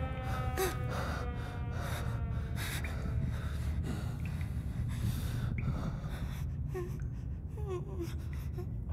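Frightened, shaky breathing and gasps from the huddled characters over a steady low rumble. A faint, slowly falling whistle fades out in the first couple of seconds, and a few small whimpers come near the end.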